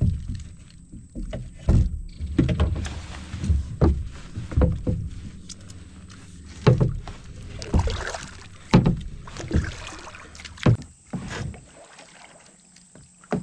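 Kayak paddle strokes in river water: a swish and splash roughly every second, irregular, growing fewer and quieter near the end.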